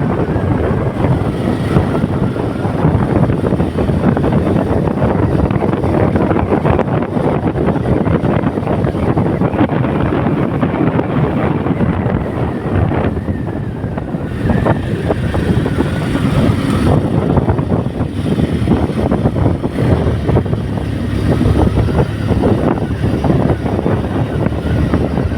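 A vehicle driving along a road: engine and road noise throughout, with wind buffeting the microphone.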